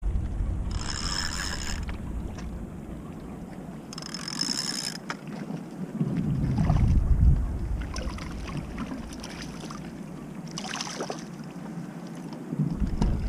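Kayak out on open water, with wind rumbling on the microphone that eases off for most of the middle, and three short watery splashing hisses, about a second in, near the fifth second and near the end.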